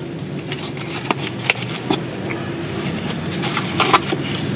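Cardboard flashlight box and its foam insert being handled as the flashlight is taken out: short taps, clicks and rustles, with a cluster of them near the end. A steady low rumble runs underneath.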